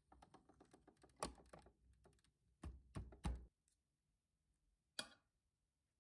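Metal fork and knife clicking and tapping on a ceramic plate while cutting pancakes: faint irregular clicks, a few sharper taps in the first half, and one more about five seconds in.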